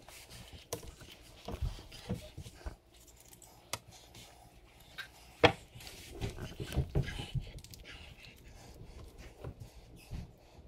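Knife work and hand handling of a skinned muskrat carcass on a towel-covered countertop: scattered light clicks and soft thuds as the meat is cut and turned.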